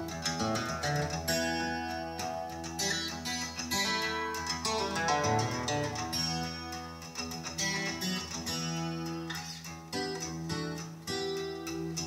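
Recorded acoustic guitar music, a busy passage of quickly plucked and strummed notes, played back through a valve amplifier and floor-standing loudspeakers and picked up by a phone microphone in the room.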